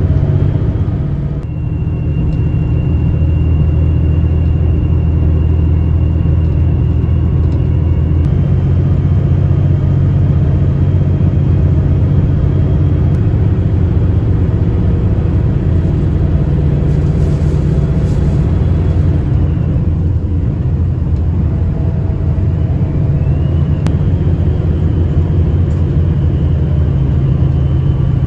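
Diesel engine of a JR Shikoku 2700 series railcar running hard under acceleration, heard from inside the passenger cabin: a steady low drone with a thin high whine above it. The engine note shifts about a quarter of the way in and again about two-thirds through.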